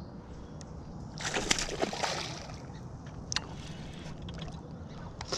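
Water splashing beside the kayak for about a second, starting a second or so in, from a hooked bass thrashing at the surface as it is played in on a spinning rod. A brief sharp click follows a couple of seconds later.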